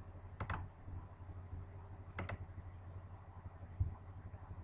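Computer mouse clicks: two quick double clicks a second and a half apart, then a dull thump, over a steady low electrical hum.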